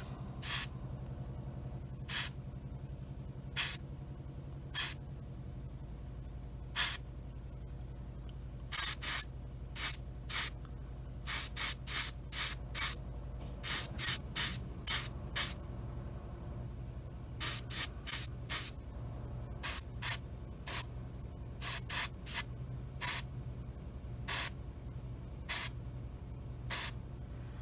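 Gravity-feed airbrush spraying paint onto a model propeller in many short, irregular hissing bursts, over a steady low hum.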